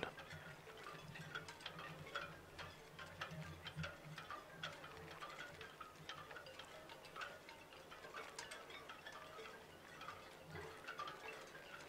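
Faint background with many soft, irregular ticks and clicks, and a low hum in the first few seconds.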